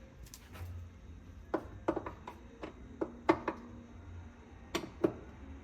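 A screwdriver turning the adjustment screw on a concealed cabinet door hinge plate, with metal-on-metal hinge noise: about ten light, irregular clicks and taps, grouped in the middle of the stretch.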